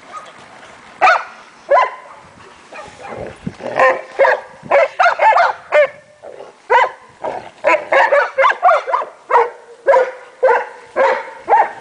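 A group of Leonberger dogs barking and vocalising in play as they wrestle, in many short pitched calls that come sparsely at first and in a quick, overlapping run from about four seconds in.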